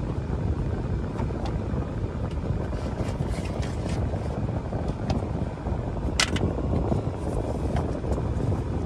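Steady low rumble inside a stationary car's cabin, with light clicks and rustles of a small cardboard box and its packaging being handled, and one sharp click about six seconds in.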